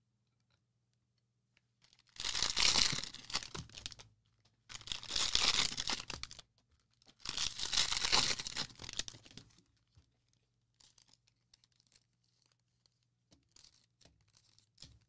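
Cellophane wrappers of trading-card packs being torn open and crinkled: three long tearing bursts of about two seconds each, then only faint rustles in the last few seconds.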